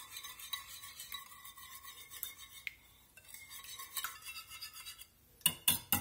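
A wire whisk beating buttermilk and eggs in a glass baking dish: a steady scratchy swishing with many small ticks of the wires against the glass. It ends in a few sharp taps as the whisk is knocked against the dish.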